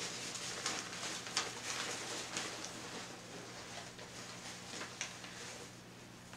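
Newspaper packing rustling and crinkling as it is unfolded by hand from around a plant cutting, with scattered small crackles that grow fainter toward the end.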